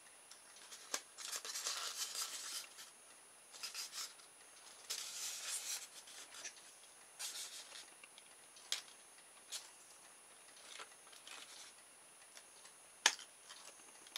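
Handling noise from a small plastic-and-polystyrene kit boat being worked on by hand: intermittent rubbing and scraping with a few sharp clicks.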